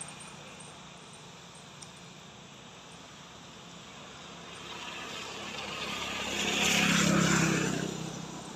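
A motor vehicle passing on the road. Its engine and tyre noise build up over a few seconds, are loudest near the end, then fade away.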